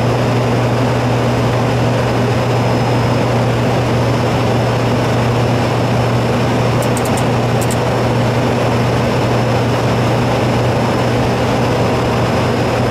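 Aircraft engine noise heard inside the cockpit on final approach: a steady drone with a strong constant low hum and a faint high whine, at an unchanging power setting. A few faint high clicks about seven seconds in.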